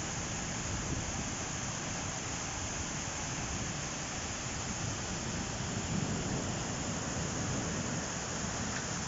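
Steady hiss of a heavy thunderstorm downpour, with floodwater running along the street.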